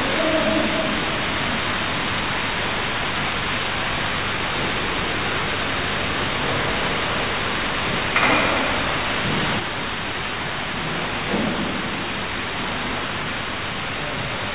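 Steady hiss of heavily amplified room tone, with brief faint voices about half a second in, around eight seconds in and again near eleven seconds.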